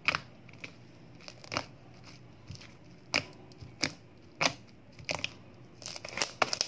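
Fluffy slime made of glue and shaving foam being stretched and squeezed by hand, giving sharp, irregular pops and crackles as air bubbles in it burst: single pops about once a second, then a quicker run of them near the end.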